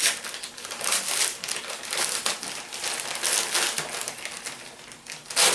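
Mailing envelope being crinkled and pulled open by hand, in irregular rustling bursts, with a louder burst near the end.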